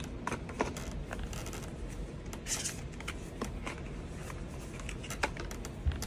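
Paper and thin card handled: the white card folder of a tablet box opened and paper inserts slid out and leafed through. Scattered light taps and rustles, with a brief sliding scrape about two and a half seconds in.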